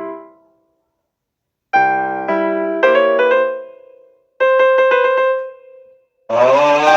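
Piano chords played in short phrases, dying away into a second of silence and then starting again, followed by a run of quick repeated notes. Near the end a harsh, noisy sound with sliding pitch cuts in loudly over the music.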